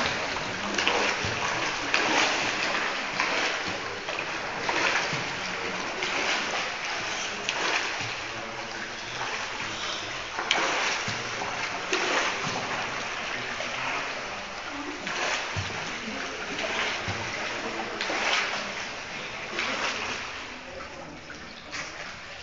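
Water splashing in an indoor swimming pool, a steady wash broken by irregular splashes every second or two.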